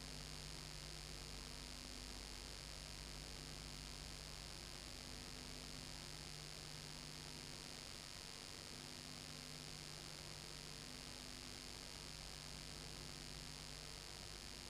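Faint steady electrical hum with hiss and no other sound: the noise floor of a silent home-movie transfer. The low hum drops out for a few seconds midway, then returns.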